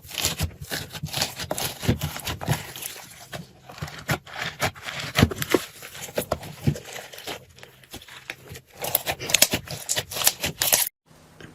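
Slime being squeezed and poked by hand, making irregular sticky crackling and popping clicks, dense in places, that cut off suddenly near the end.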